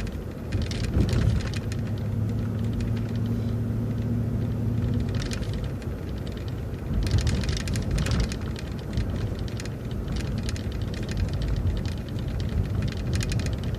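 City transit bus driving, heard from inside: the engine runs with a steady low hum for the first few seconds. After that come frequent light rattles and knocks from the bus body over the road.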